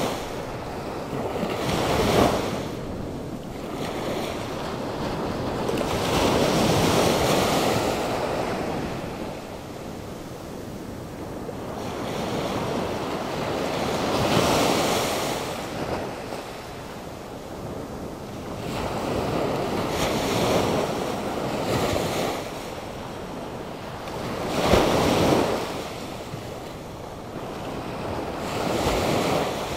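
Atlantic Ocean surf: waves breaking and washing up the shore in a slow rise and fall, with surges every few seconds. Wind gusts from the storm-driven weather blow across the microphone.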